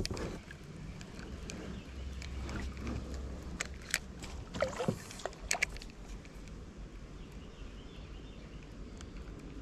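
Spinning reel being cranked on a kayak: a few light clicks and knocks from the reel and rod over a low rumble.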